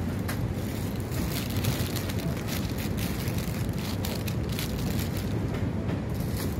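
Clear plastic flower sleeves crinkling and rustling as rose bouquets are handled in a cardboard box, over a steady low rumble.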